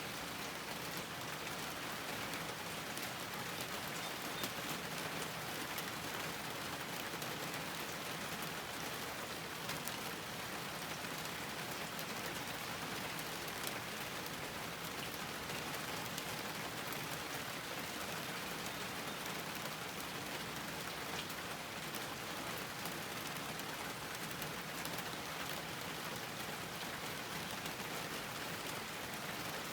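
Steady rain falling on a garden, an even hiss of drops with fine patters throughout.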